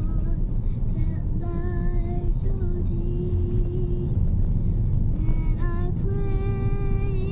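A person singing slow, held notes over the steady low rumble of road noise inside a moving car, with a long sustained note near the end.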